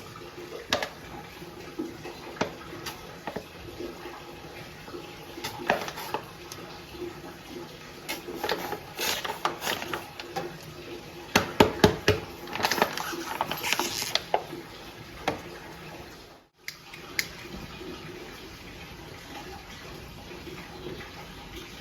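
Steady rain with dishes and cutlery clinking, in a cluster of sharp clinks through the middle. The sound drops out briefly about three-quarters of the way in.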